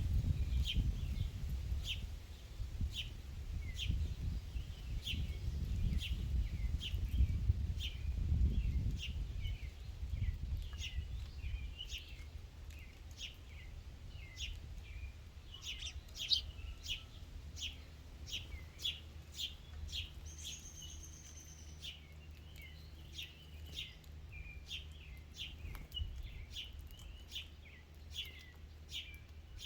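A small bird repeating short, high chip notes at an even pace, a little faster in the second half, with one brief falling note about two-thirds of the way through. A low rumble underlies roughly the first third.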